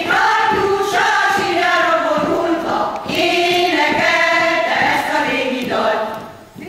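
Women's folk choir singing in full voice, in long held phrases, with a brief break about three seconds in; the phrase ends and the singing drops away shortly before the end.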